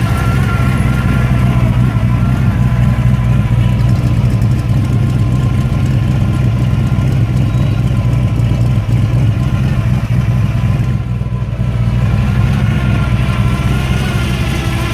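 383 stroker V8 with dual four-barrel carburettors on a tunnel ram, idling steadily.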